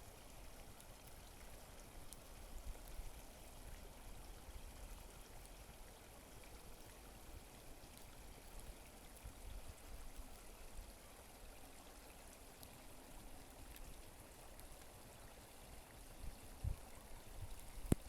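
Small creek running, a faint, even rush of water, with a couple of soft low knocks near the end.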